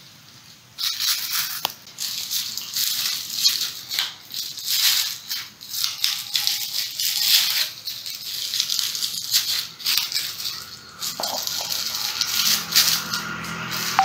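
Thin plastic carrier bag crinkling and rustling in uneven bursts as it is folded and scrunched by hand, starting about a second in. A few faint steady tones come in near the end.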